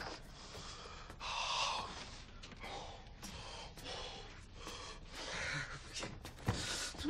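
A person gasping and breathing hard in a run of ragged breaths, with a few faint clicks in between.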